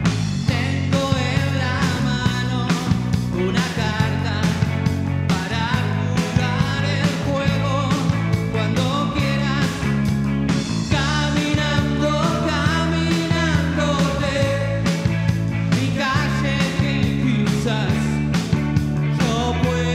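A rock band playing live in the room: electric guitars over a drum kit keeping a steady beat, with a heavy low end.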